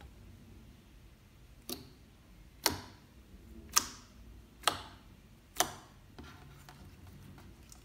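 Fingertips pressing into a flat sheet of clear glue slime, making five sharp pops about a second apart, then a few softer clicks near the end.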